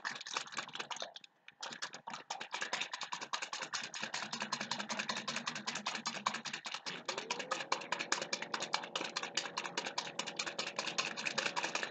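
A plastic bottle holding a thick mix of crushed chalk and rubbing alcohol being shaken hard by hand: a fast, even rattle of knocks, with a brief pause just after a second in.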